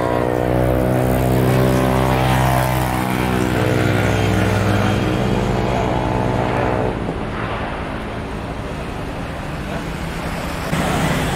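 Airbus A320-family jet engines during a landing roll-out: a loud, steady drone of many tones over a deep hum. About seven seconds in it drops suddenly to a quieter, rougher rush, then jumps louder again near the end.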